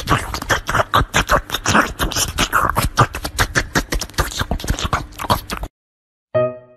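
A ginger-and-white cat licking an ice pop: rapid smacking licks, several a second, that stop abruptly near the end, after which piano music begins.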